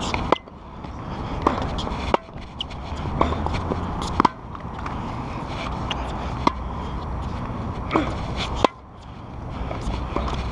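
Tennis balls struck by rackets and bouncing on a hard court during a rally: sharp pops every second or two, over a steady low rumble of movement noise from the chest-mounted action camera.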